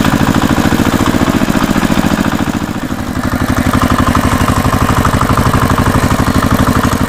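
Tractor engine running with a fast, even throb; about three seconds in it dips briefly and a second tractor engine takes over, with a higher hum over the throb.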